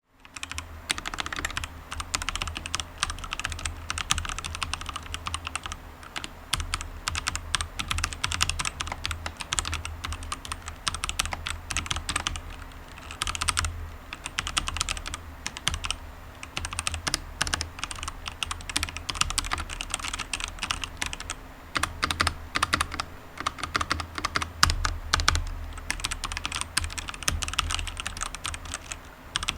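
Fast, continuous typing on a DURGOD K620w Corona mechanical keyboard with Kailh Red linear switches and PBT double-shot Cherry-profile keycaps, with a few short pauses.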